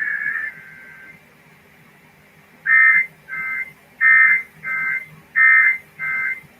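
Emergency Alert System SAME digital data tones: a long harsh burst ends about half a second in, then after a pause come six short bursts in three pairs, the second of each pair quieter.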